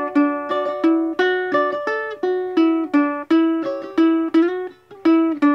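Ukulele playing an instrumental break of the tune, with a run of plucked notes and chords at a steady pace and a short pause near the end.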